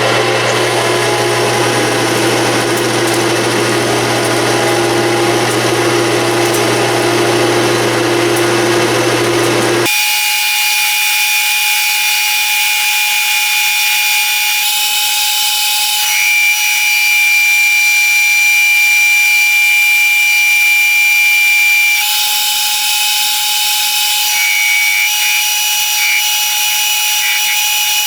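Metal lathe running while a cutting tool turns down the diameter of a round metal workpiece. About ten seconds in, the sound changes abruptly from a fuller hum to a steady high-pitched whine.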